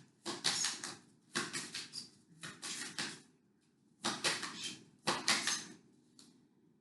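A deck of tarot cards being shuffled by hand, in about eight short bursts of quick flicking clicks with brief pauses between them.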